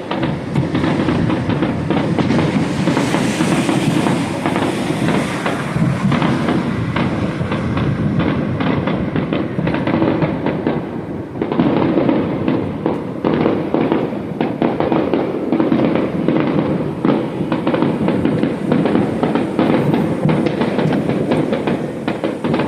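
Fireworks going off in a dense, continuous barrage of pops and crackles, with a brief lull about eleven seconds in.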